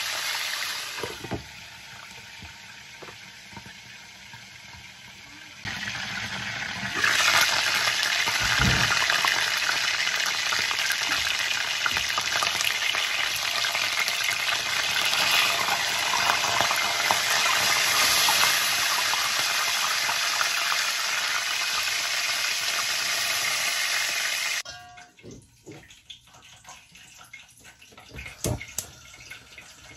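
Chicken leg quarter sizzling as it shallow-fries in hot oil, turned with tongs. The sizzle is louder from about seven seconds in and cuts off abruptly near the end, leaving only a few faint knocks.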